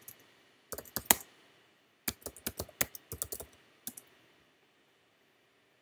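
Computer keyboard keys clicking as a short command is typed: a few keystrokes about a second in, then a quick run of about a dozen, and one last separate press just before four seconds in, the Enter key that starts the command.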